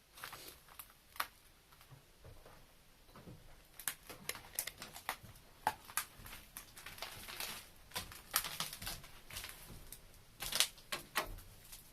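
Irregular crunching, crackling and clicking of debris underfoot and being handled, with a few louder crunches and quiet stretches between.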